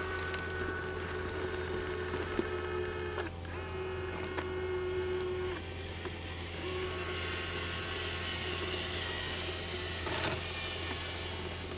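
Electric drive motors and gearboxes of a 3D-printed 1/14-scale RC articulated dump truck whining as it drives, with the pitch shifting a few times. There is a brief knock about ten seconds in.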